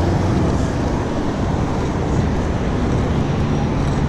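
Steady rush of wind and road noise on the microphone of a camera on a moving bicycle, with a low hum of car engines from nearby traffic.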